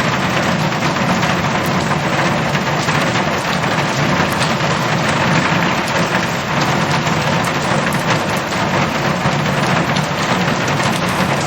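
Heavy rain drumming steadily on a metal roof: a dense, even patter of countless drops hitting the sheet metal.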